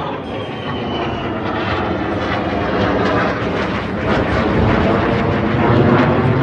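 Two jet fighters flying overhead in formation, their engines making a steady rushing noise that grows louder toward the end, with a faint falling whine in the first second or so.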